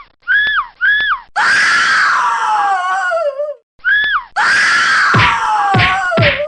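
Comic squeaky sound effects standing in for a man's voice: three short squeaks that rise and fall, then a long squeal falling in pitch. Another squeak follows, then a second long falling squeal with a run of sharp knocks over it near the end.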